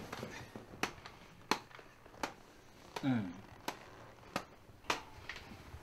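A run of sharp, evenly spaced ticks, about one every 0.7 seconds, with a short falling vocal sound, like a grunt or sigh, about three seconds in.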